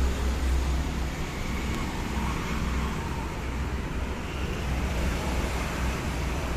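Steady low rumble and hiss of road traffic.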